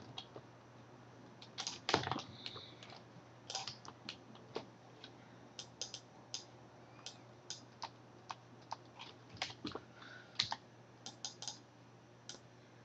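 Computer keyboard typing: short, irregular runs of keystrokes, with a few louder clicks. A faint steady low hum runs underneath.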